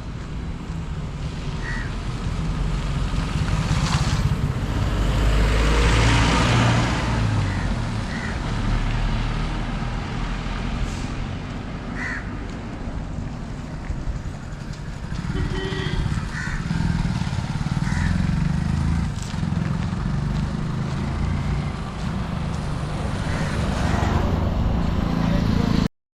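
Road traffic at a busy junction: motorcycles and cars passing with a steady engine rumble, one louder pass about five seconds in. The sound cuts off suddenly near the end.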